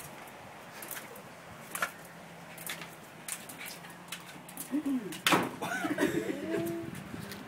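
Jack Russell terrier jumping again and again on a tiled floor: scattered taps of its paws landing, a louder thump about five seconds in, then a few short squeaky gliding sounds.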